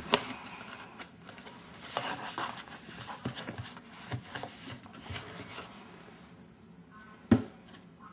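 Cardboard box rustling and scraping as a hand pushes a cat toy in through its flap, a run of short scratchy scrapes and clicks, then a single sharp knock about seven seconds in.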